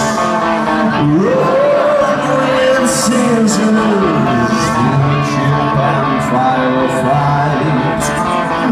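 A rock band playing live: electric guitars and drums, with a singer holding a long note that slides up about a second in, heard from the crowd in a large arena.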